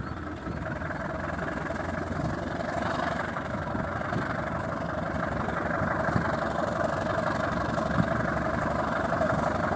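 Diesel locomotive engine running as the locomotive approaches at low speed, growing slowly louder.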